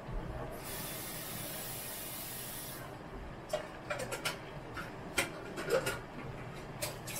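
Rice in red chicken broth heating in a frying pan on an electric stove at full heat: a steady hiss for about two seconds, then scattered small pops and ticks as the liquid heats toward the boil.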